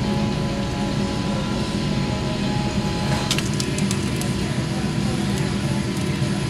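Sheet-metal bending brake being worked to fold a steel bracket, with a few sharp metallic clicks about three and a half seconds in. A loud, steady drone runs underneath.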